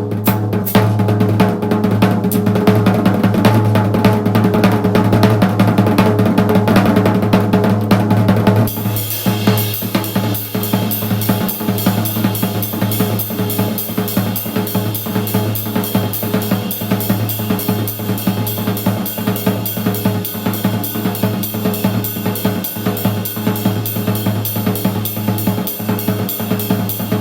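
Background music with a steady drum-kit beat; about nine seconds in the arrangement changes and brighter cymbals and hi-hat come in.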